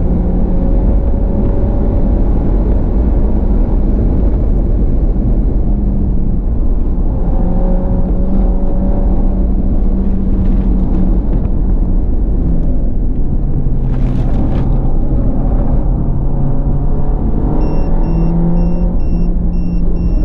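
Mini Cooper S at speed on a race circuit, heard from inside the cabin: heavy road and wind rumble under the engine note, which rises and falls with throttle and gear changes. A short hiss comes about fourteen seconds in. Near the end a steady, repeating electronic beep starts, several beeps a second.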